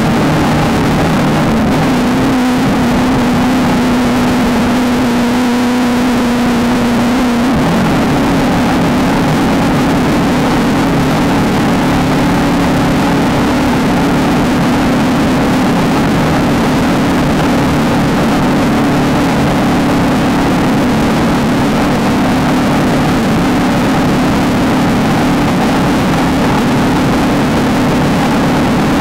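Off-road race vehicle's engine running hard and steady at a near-constant pitch, with a slight change in its note about seven seconds in.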